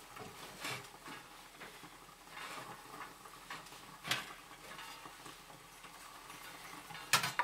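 Chicken and cream-soup mixture simmering in a metal canteen cup over a fire: a faint steady hiss with small scattered pops and clicks, a sharper click about four seconds in and a few more near the end.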